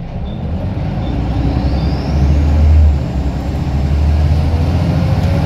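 Scania L94UB bus's rear-mounted five-cylinder diesel engine pulling hard under full throttle, heard from inside the saloon: a loud, deep engine drone that builds for about three seconds, eases off briefly, then pulls on steadily.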